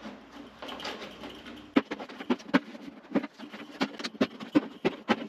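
Rapid, irregular run of sharp snaps and pops, starting about two seconds in after some light scraping, as a panel tool pries the door panel off a Volkswagen Vanagon and its retaining clips pop out of the door.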